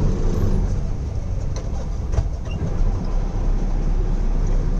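Steady engine drone and road rumble heard inside the cab of a moving truck, with a few light knocks from the cab about two seconds in.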